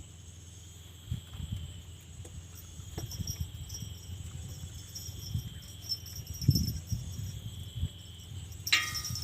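Steady chorus of crickets or other night insects chirping, with scattered low thumps and a brief shrill squeak just before the end.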